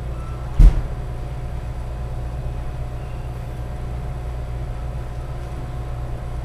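Steady low hum, with one loud, sharp thump about half a second in.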